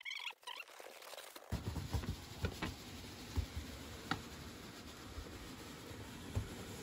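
A large cardboard shipping box being handled and slid: cardboard rubbing and scraping, with scattered light taps and knocks.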